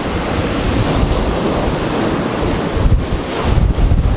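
Surf breaking and washing on a sandy beach, with wind buffeting the microphone in a heavy, uneven low rumble.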